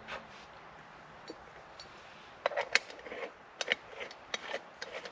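Irregular sharp clicks and clatters of small camping kit being handled, starting about halfway through.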